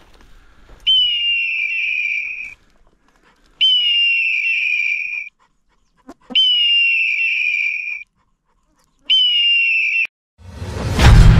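A setter dog whining four times, evenly spaced with silence between. Each whine is a long high cry of about a second and a half that jumps up at the start and then holds steady. Near the end a loud boom swells up and runs on as a low rumble.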